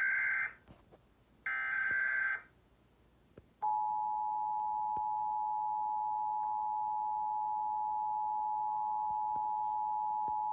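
Emergency Alert System national-test tones on a TV broadcast. The end of one burst of the SAME header's digital data screech is followed by another burst about one and a half seconds in. At about three and a half seconds the steady two-tone EAS attention signal starts and holds.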